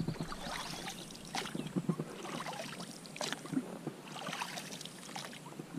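Water splashing and lapping in small irregular bursts against an inflatable boat on a calm lake.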